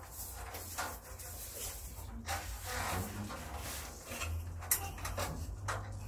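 Repeated rubbing and scraping strokes of a hand tool against non-woven wallpaper as it is worked into the corner at the ceiling, with a sharp tick a little under five seconds in.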